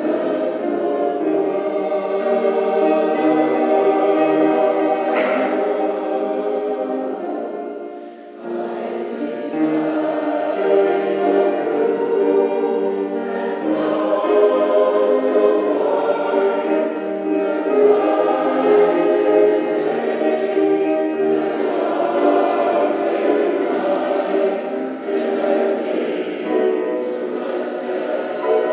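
Mixed choir singing in parts, holding long phrases, with a short break for breath about eight seconds in.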